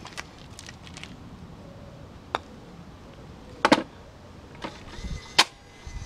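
A putter taps a golf ball up an artificial putting mat into an automatic ball-return cup. There is a sharp tap about two seconds in, then a cluster of louder knocks a second or so later, and a last sharp click near the end as the ball is knocked back out by the return machine.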